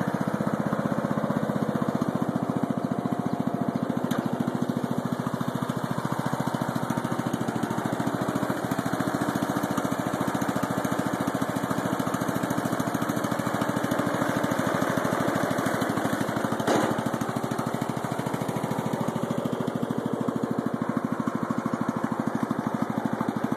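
Briggs & Stratton I/C engine of a Huskee riding lawnmower running steadily with an even, regular beat, its carburettor freshly cleaned and the engine running smoothly.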